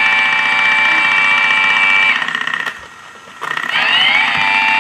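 Battery-powered motor on a TrackMaster Steamworks Repair Station toy set, running with a steady high electric whine. It stops about two seconds in and restarts about a second later, its pitch rising as it spins back up.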